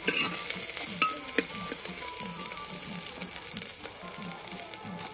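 Sliced onions sizzling as they fry in a metal pot, stirred with a metal ladle that clicks against the pot a few times in the first second or so.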